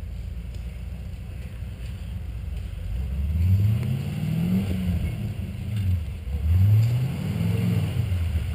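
Off-road competition truck's engine running at a low rumble, then revved up and back down twice in the second half.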